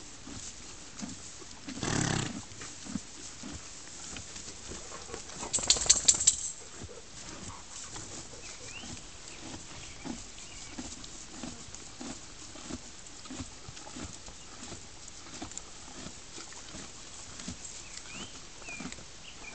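A horse chewing its feed: soft crunching repeated at an even pace. A brief loud rush of noise about two seconds in and a short burst of sharp rattling clicks around six seconds in break the chewing.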